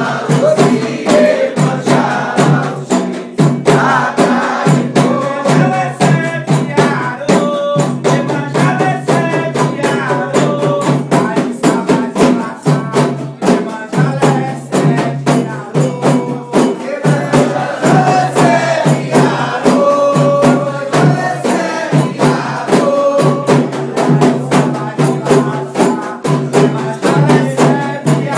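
Candomblé chant: voices singing over dense, driving drum and percussion beats, without pause.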